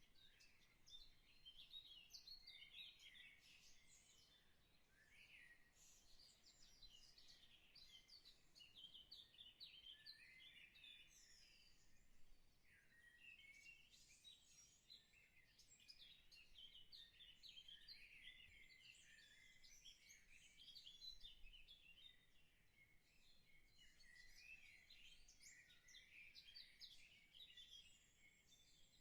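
Faint chorus of small birds chirping and twittering continuously, many quick high chirps overlapping.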